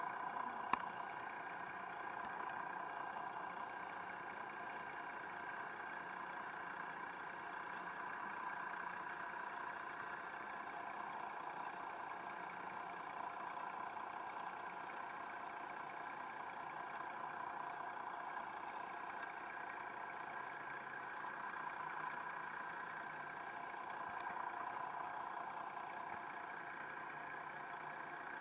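Steady, muffled mechanical hum recorded underwater, with a single click just under a second in.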